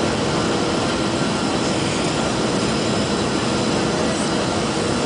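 Steady roar of a Boeing 737-300's CFM56-3 turbofans and the rushing airflow, heard from inside the cabin during the descent, with no change in level.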